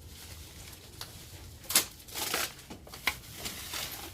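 Crinkling and rustling of the plastic wrapping on a new aftermarket cone air filter as it is handled, in a few short bursts about halfway through.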